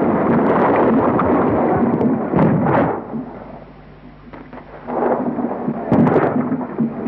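Cannon fire in a re-enacted battle: a dense rumble that fades about three seconds in, then builds again with sharp cracks about six seconds in.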